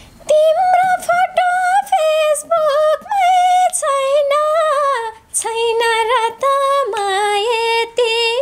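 A teenage girl singing a Nepali song solo and unaccompanied, in a high voice with wavering, ornamented phrases separated by short breaths. About halfway through the melody drops to a lower pitch.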